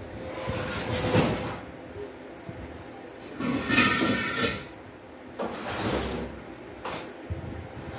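Household things being slid and dragged about: several scraping slides about a second each, one around the middle with a squeak in it, and a short sharp knock near the end.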